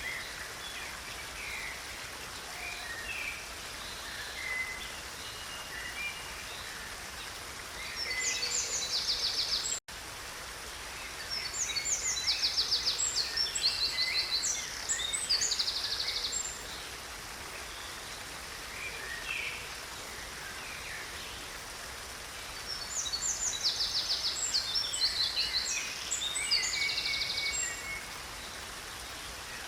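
Creek water flowing steadily while songbirds sing in spells of rapid high trills and chirps, the longest spells starting about 11 and 23 seconds in. The sound cuts out for an instant about ten seconds in.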